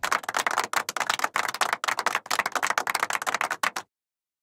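Cartoon sound effect of rapid, irregular clicking and clattering, much like fast typing, that cuts off abruptly near the end into dead silence.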